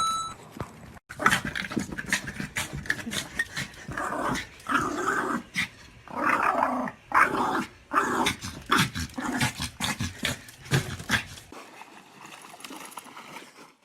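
A dog growling over and over in short bursts for about ten seconds, then falling quiet near the end.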